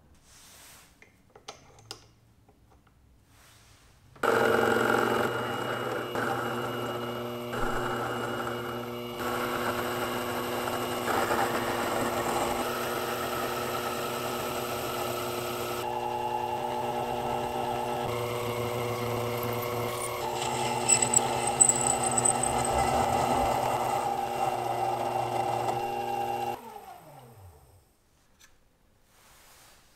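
Small benchtop metal lathe starting up about four seconds in and running steadily, its motor and gearing giving several steady tones while the tool turns a copper rod. Near the end it is switched off and winds down, its pitch falling away.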